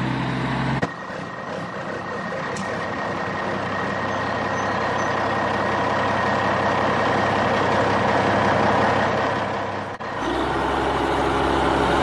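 Vehicle engine sound effect laid over the toy tractor footage. A low engine hum gives way about a second in to a hissing engine sound with a steady whine, which slowly grows louder. Near the end it cuts suddenly back to a deeper engine hum.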